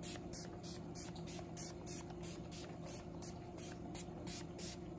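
A fine-mist pump bottle of BH Paradise Set hydrating setting spray being spritzed again and again, in short hissing puffs about four a second.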